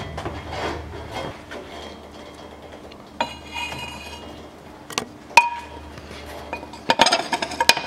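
Tools and an inspection mirror being picked up and handled: rummaging, then light metallic clinks and taps, two ringing ones about five seconds in and a quick cluster near the end.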